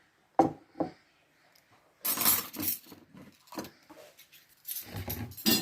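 Plates and cutlery clinking and knocking: a couple of separate clinks, then a louder clatter about two seconds in, then more scattered clinks.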